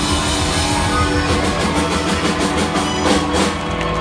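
Live Tex-Mex band playing an instrumental passage, with electric guitar, drum kit and sustained accordion tones. A run of quick drum hits comes in about a second in and carries on to the end.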